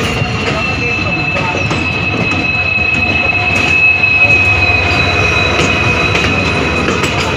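Railway wheels squealing on a curve: a steady high squeal that drifts slightly lower, over the rumble and clatter of passenger coaches on the track, while a diesel-hauled express passes close alongside on the next line.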